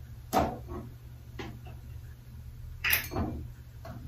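Handling noise: two sharp knocks about two and a half seconds apart, with a few lighter taps between them.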